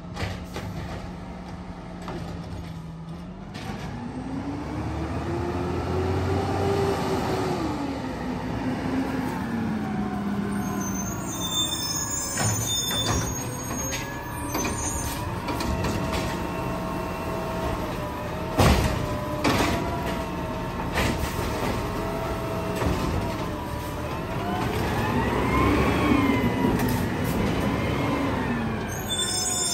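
CNG side-loader garbage truck running, its engine rising and falling in pitch twice as it revs. There is one sharp bang about two-thirds of the way through, with a few lighter knocks around it.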